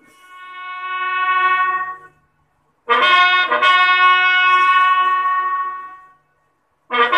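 A brass horn plays long held notes. One note swells up and stops after about two seconds, then after a short gap a longer, steadier note lasts about three seconds, and another starts just before the end.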